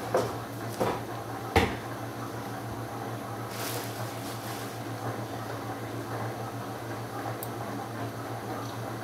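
Disc-detainer pick working the discs of a small padlock: a few small clicks, the sharpest about one and a half seconds in, and a brief scrape a couple of seconds later, over a steady low hum.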